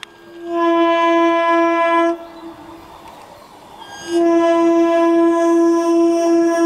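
Horn of an Indian Railways EMU suburban train running through a station, sounding two long blasts on one steady pitch. The first lasts about a second and a half. The second starts about four seconds in and is still sounding at the end.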